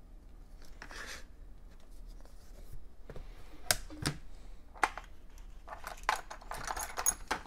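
Workbench handling noises: sharp clicks and knocks as the opened MacBook Air is turned over and laid down, then a rustle with clicks near the end as small screws are picked out of a plastic parts tray.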